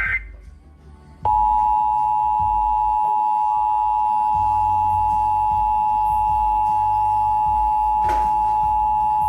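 Emergency Alert System two-tone attention signal, 853 Hz and 960 Hz sounded together, coming on about a second in and holding steady and loud: the alert tone that opens an EAS message, here a required monthly test. Just before it, a SAME digital data burst cuts off right at the start.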